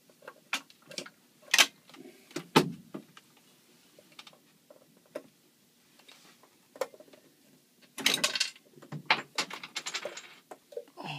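Hand pump of a cooling-system pressure tester being worked on a marine diesel's expansion tank: scattered clicks and knocks from the pump and fittings, then from about eight seconds in several bursts of hissing, bubbling noise. Air is escaping where the hose has come off the expansion-tank nipple, so no pressure builds.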